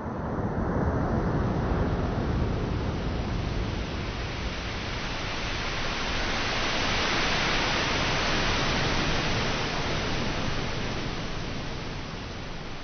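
Ocean surf: waves breaking and foam washing up the sand as a steady rushing hiss. It swells in the first two seconds, dips, swells again, hissier, around seven to nine seconds, then eases off near the end.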